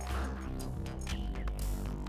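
Electronic dubstep-style background music with a heavy, steady bass line and sustained synth tones.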